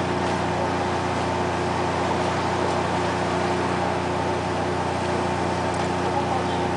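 Bottom trawler's onboard machinery running with a steady hum of several fixed tones, unchanging in level.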